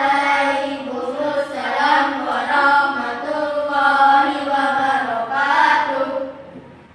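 A class of children chanting in unison with long, drawn-out notes, dying away about six seconds in.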